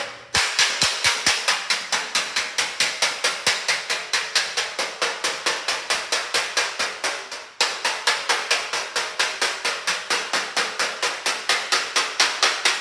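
Slap file slapping the dented panel of a car fender with a dolly held behind it: fast, even metallic strikes at about five a second, with one short break about seven and a half seconds in. This is the finishing stage of a hammer-and-dolly dent repair.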